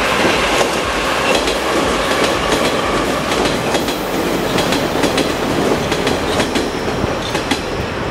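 Metro trains running on open-air surface tracks, two of them passing each other, with the steady rumble and repeated clatter of wheels over rail joints.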